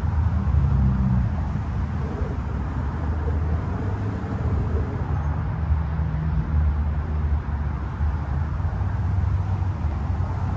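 Subaru Outback's 2.5-litre flat-four boxer engine pulling the car up a dirt slope: a steady low rumble that barely changes.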